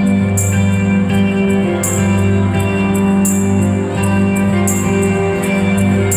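Live rock band playing an instrumental passage: sustained guitar and bass chords under a steady beat, with a bright hit about every second and a half.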